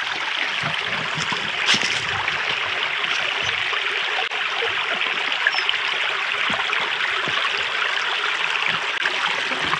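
Shallow clear creek flowing over rocks: a steady, even rush of running water, with one brief click a little under two seconds in.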